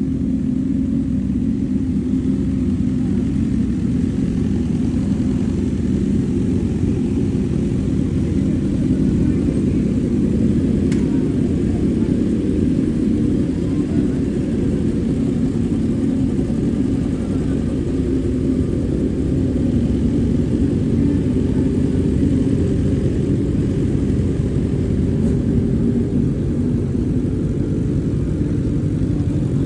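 Remapped Kawasaki Z1000 inline-four motorcycle engine running at a steady speed, its exhaust note even and low with no revving.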